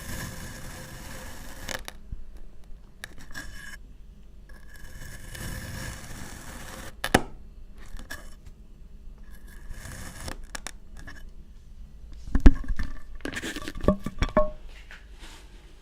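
Kinetic sand being scraped and cut with a tool in several separate strokes, with sharp clicks between them. Near the end come a few loud knocks, the loudest about three-quarters of the way through.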